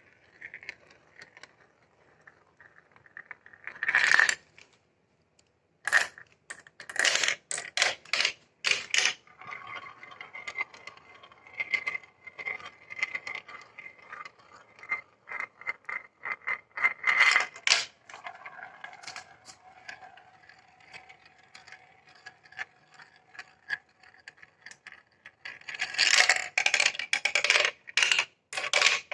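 Marbles rolling down a plastic marble-run track, with clusters of sharp clicks and clatter as they drop through the pieces, and a steady rolling hum in between.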